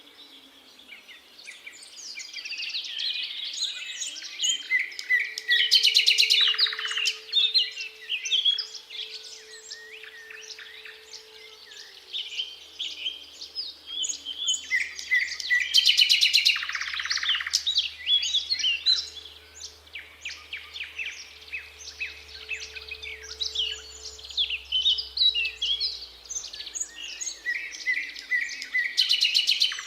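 Thrush nightingale singing in varied, separated phrases, three times breaking into very loud, rapid clicking rattles. Underneath, a faint siren wails twice, each time rising, holding its pitch for several seconds, then falling.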